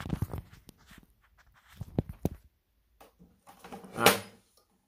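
A phone being handled close to its microphone: rubbing and a few sharp knocks, then a short, loud, breathy grunt about four seconds in.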